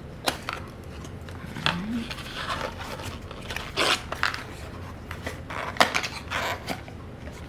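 Small cardboard packaging being handled and opened: scattered light clicks, taps and short scrapes of box flaps and contents.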